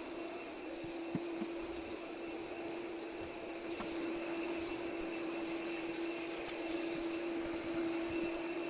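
Vacuum cleaner running steadily, a constant hum over a hiss, with a few light clicks.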